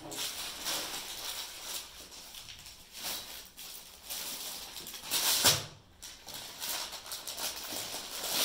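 Rustling of suit fabric being handled and unfolded, with a louder swish about five seconds in.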